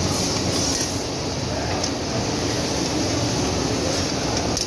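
Steady noise of large open gas burners turned up high under several karahi pans, with the mutton sizzling as it is stirred with metal ladles.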